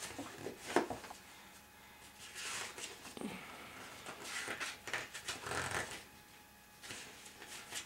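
Paper rustling and brushing of a children's board book's pages and lift-up flaps being handled, in scattered short bursts.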